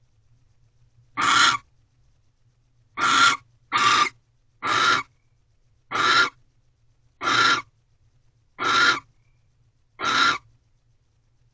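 Barn owl giving a series of short, harsh, hissing calls, eight in all, about one every second or so.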